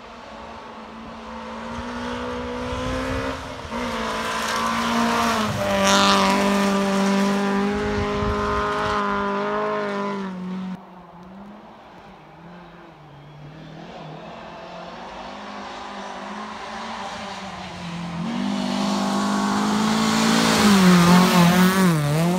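Two rally cars driven hard on a gravel stage, one after the other, engines at high revs with gear changes. The first builds to full volume and fades before the sound breaks off about halfway through; the second comes up loud near the end, its revs dipping sharply a few times as it slides past on gravel.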